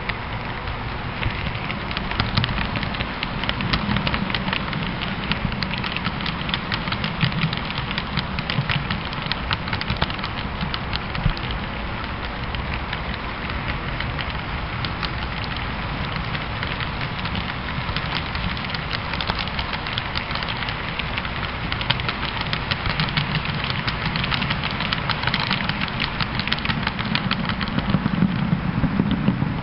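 HO-scale model train rolling past: a steady rattle of many fine clicks as the metal wheels of the hopper cars run over the rail joints. Under it is a low hum that grows louder as the locomotives go by, about two seconds in and again near the end.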